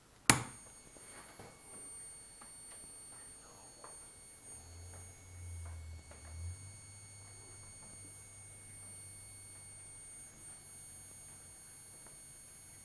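A sharp click, then a steady high-pitched whine of several fixed tones from a homemade high-voltage igniter of about 100,000 volts, running and powering a simple ion engine. A brief low hum comes and goes near the middle.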